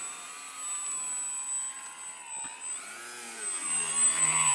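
Electric motor and propeller of a foam RC Nutball plane whining in flight. The pitch bends up and down as the throttle and distance change, and it is loudest near the end as the plane passes close by.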